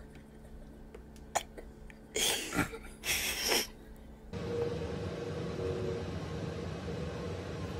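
Two short, breathy snorts of held-in laughter about two and three seconds in. After a cut, a steady low hiss of room noise with a faint hum.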